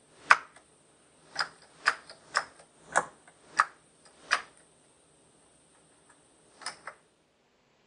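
Computer keyboard keys struck one at a time in slow, deliberate typing: seven single keystrokes about half a second apart, a pause, then two quick keystrokes near the end.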